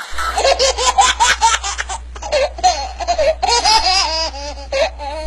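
High-pitched laughter in rapid, repeated bursts of rising and falling pitch.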